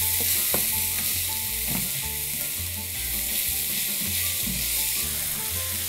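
Diced chicken breast and spicy sausage sizzling as they sear in a hot, thin paella pan, with a wooden spoon stirring the pieces and a few faint clicks against the pan. The pan is turned up high to build a golden-brown crust on the meat.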